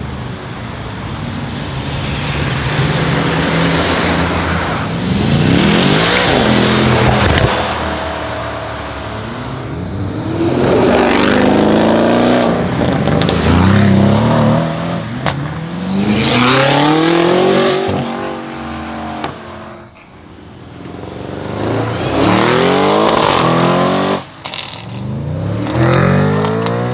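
Decatted BMW M5 F90's twin-turbo V8, on an Akrapovic exhaust, accelerating hard several times. The engine note climbs steeply and drops back again and again, like a run up through the gears.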